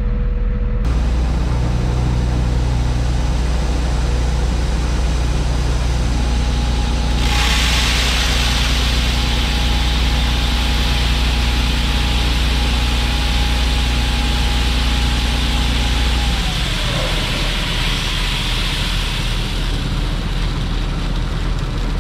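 Vehicle engine running steadily under way with a deep drone. A hiss rises about seven seconds in, and a thin high whine falls away as the engine note drops about seventeen seconds in.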